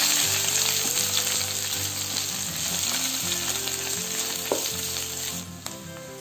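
Sliced onions sizzling as they fry in hot ghee and oil in a steel kadai, stirred with a wooden spatula. The sizzle drops away sharply about five and a half seconds in.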